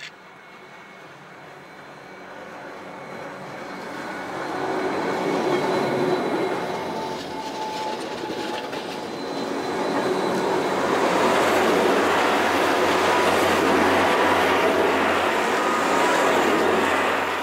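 Gornergrat Bahn electric rack-railway train passing close by, its running noise growing as it approaches and staying loud and steady while the carriages go past, then starting to fade near the end. A short click right at the start.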